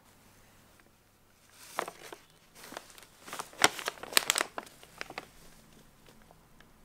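Brown paper bag crinkling and rustling as a cat moves inside it, in a run of crackly bursts from about a second and a half in, loudest in the middle, then dying away.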